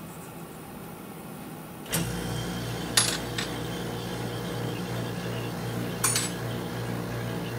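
An electric vacuum pump on a jeweler's vacuum casting machine is switched on about two seconds in with a click and then runs with a steady hum. A few sharp metal clinks from handling steel casting tongs come near the middle and again near the end.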